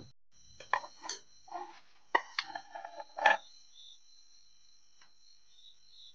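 Crickets trilling steadily, with a run of sharp clicks and knocks in the first half, like utensils being handled.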